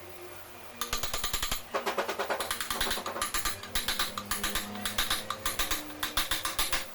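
Rapid, irregular clatter of sharp knocks and clicks, several a second, starting about a second in.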